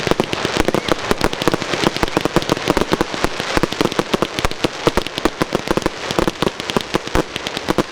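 Fireworks display: a rapid, continuous barrage of sharp bangs and crackles, many bursts a second with no let-up.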